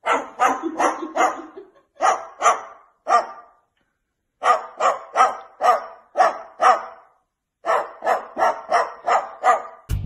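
White cockatoo imitating a dog's bark: short barks in runs of three to seven, about two or three a second, with short pauses between the runs.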